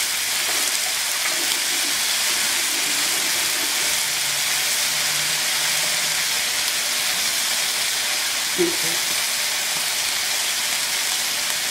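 Marinated chicken thighs sizzling steadily in a little hot oil in a ridged grill pan.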